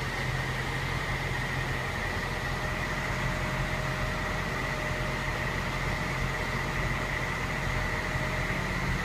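Steady low mechanical hum with a faint, high steady whine above it.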